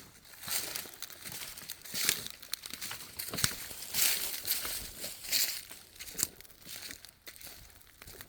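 Footsteps crunching and rustling through dry fallen leaves on a woodland trail, in uneven strides about a second apart.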